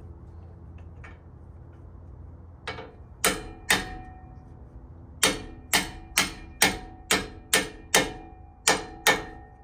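Hammer blows on a steel socket used as a driver, knocking a new rear wheel bearing onto a Toyota FJ40 rear axle. There are two ringing metallic strikes, a pause, then about ten more at roughly two a second. The bearing is hanging up on a ridge on the axle and not seating.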